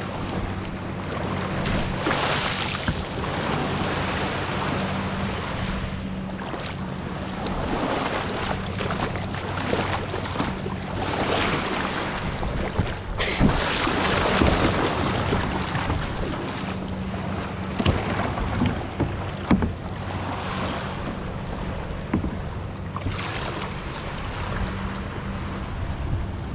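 Wind gusting on the microphone and small waves lapping around a kayak, with a steady low hum underneath and a couple of sharp knocks, one about halfway through and one later.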